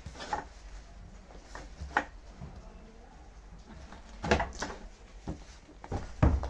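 An 18-inch all-metal foot-operated paper perforation machine being worked while paper is handled and lined up on it. There is a series of sharp knocks and clacks from the machine, the loudest a pair about four seconds in and one near the end.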